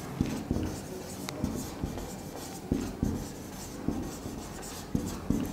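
Marker pen writing on a board in a run of short, uneven strokes and taps.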